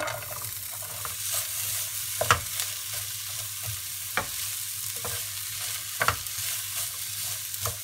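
Julienned carrot, potato and green beans sizzling in hot oil in a nonstick frying pan while a wooden spatula stirs them. Several sharp knocks of the spatula against the pan come about every two seconds, the loudest a little over two seconds in.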